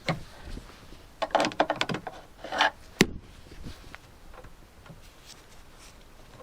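Clicks, rattles and scrapes of a Land Rover Discovery 2 rear door lock mechanism and its linkage being handled and fitted inside the open door, with one sharp click about three seconds in, then only faint small knocks.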